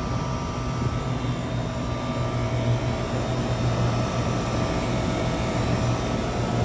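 2000s Carrier Tech2000 outdoor unit running, a steady low compressor hum under the rush of the condenser fan, with its coil frozen over.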